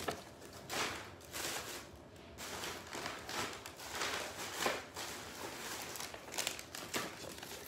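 Paper and gift-bag tissue rustling and crinkling as packaging is handled, in short irregular bursts.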